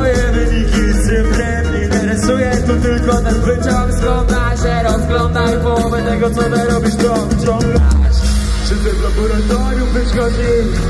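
Live hip-hop performance over an arena PA: a rapper's amplified vocal over a backing track with heavy bass and drums. About eight seconds in the bass gets deeper and heavier.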